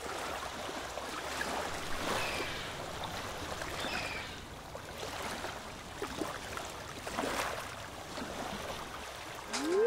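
Ocean surf washing on a beach, a steady rush of water that swells and eases every few seconds, with a few faint high chirps.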